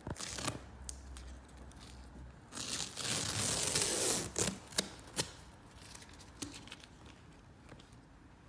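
Masking tape being peeled off a leather sofa cushion: a ripping sound lasting nearly two seconds, followed by a few sharp clicks.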